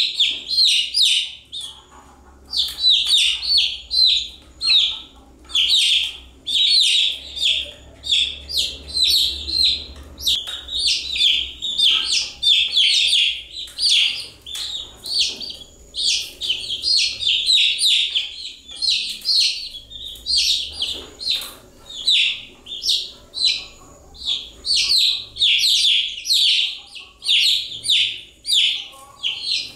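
Baby chicks peeping continuously, many high-pitched falling chirps in quick clusters with short lulls between them.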